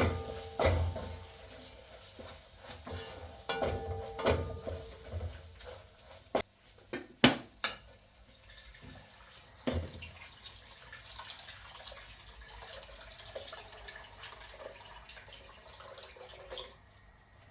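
Kitchen handling sounds: a scattered series of knocks and clinks of dishes and utensils, the sharpest about seven seconds in.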